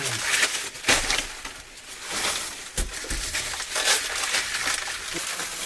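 Rustling and crackling, as of dry material being handled, with a few sharp snaps.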